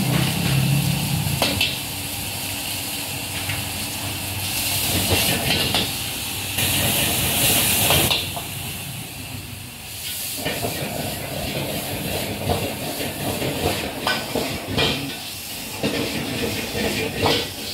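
Wok stir-frying over a high gas burner: food sizzling and steam hissing, with two louder surges of hiss about five and seven seconds in. A metal ladle knocks against the wok several times.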